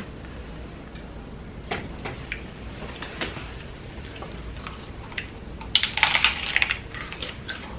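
Crunching of hard-shell corn tacos being bitten and chewed: a few scattered crunches, then a dense burst of crackling bites about six seconds in.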